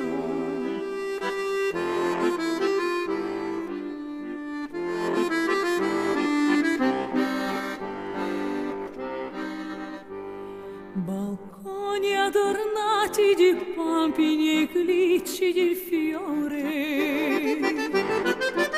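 Accordion playing the melody in an instrumental break of a sung Italian ballad, with held, wavering notes.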